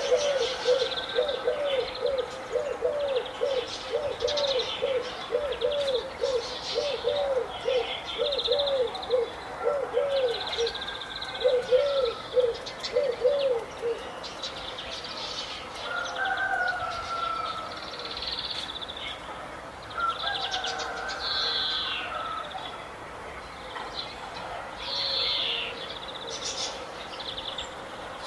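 Several birds calling and chirping together, with high chirps and trills throughout. For about the first half a run of quick, low, repeated notes comes about two a second, then stops.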